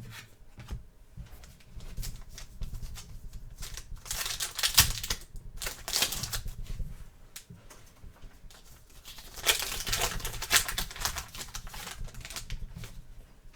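Trading card pack wrapper crinkled and torn open, with cards clicking as they are handled and flicked through. The rustling is loudest twice, about four seconds in and again near ten seconds.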